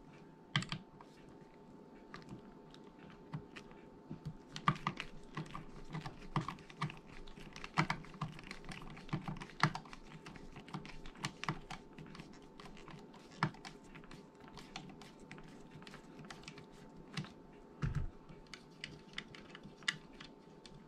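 Irregular small clicks and taps of a screwdriver turning out the top screw of a Springfield Trapdoor rifle's stock, with a dull knock a few seconds before the end.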